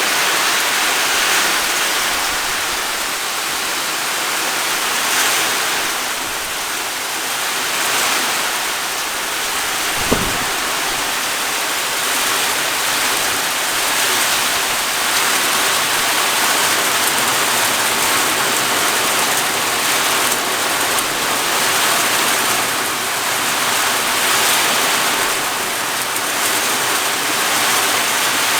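Heavy rain pouring down in a thunderstorm, a steady dense hiss. A single short knock sounds about ten seconds in.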